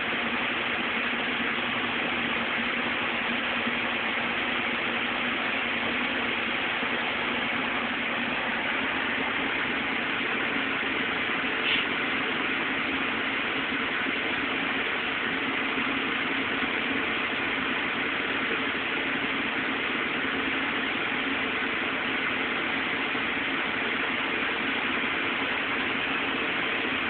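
Steady background hiss with a faint low hum, unchanging throughout, and one brief click about twelve seconds in.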